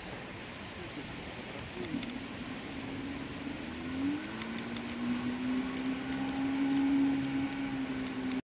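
Steady rush of a mountain river, with sharp crackles from a wood campfire. From about two seconds in, a distant engine drone comes in, rises a little in pitch, then holds steady and grows louder.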